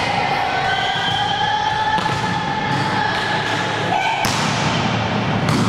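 A volleyball thudding on the court: the server bounces it on the floor and strikes it, two sharp hits, one about four seconds in and another near the end, over a steady background of voices in a large sports hall.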